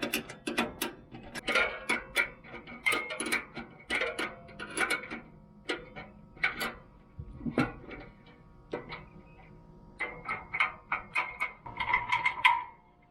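Wrench and steel bolts clicking and clinking against the sheet-steel parts of a tool cart as an arm is bolted on: irregular sharp metallic clicks with a slight ring, busiest and loudest near the end.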